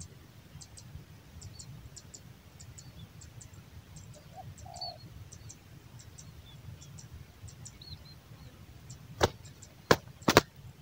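A spotted dove gives a faint, short two-note coo about halfway through, over a row of faint high chirps from small birds. Near the end come three loud sharp clicks or knocks.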